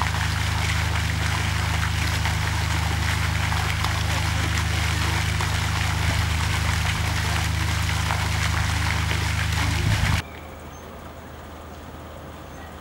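Steady rushing and trickling of water in a pond, over a low steady hum. It cuts off abruptly about ten seconds in, leaving a much quieter outdoor background.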